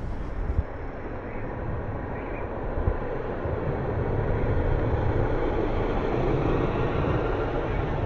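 A car passing close by on the street: tyre and engine noise that swells from about halfway through and stays loud near the end.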